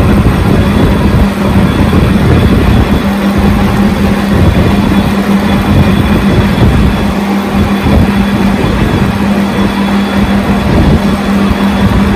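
Lathe running under a boring cut in UHMW plastic: a loud, steady machine hum with a strong low tone, unchanged through the cut.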